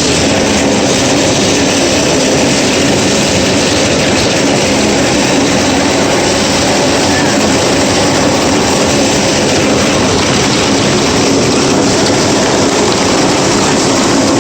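Hailstorm: a dense, loud, steady din of countless hailstones striking hard surfaces.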